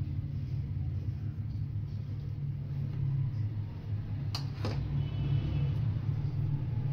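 A steady low hum throughout, with two short clinks of a metal spoon against the dishes a little over four seconds in as mashed potato filling is spread onto bread.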